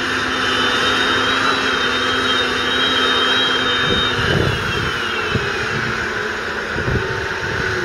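Case IH Magnum 380 RowTrac's 8.7-litre six-cylinder diesel running steadily under load while pulling a seed drill, with a high whine over the engine drone that falls away about four to five seconds in. A few low thumps come in the second half.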